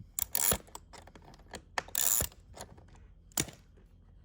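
Ratchet wrench clicking in short bursts, three louder ones with small clicks between, as it is swung back and forth to back out a 12 mm seat rail bolt.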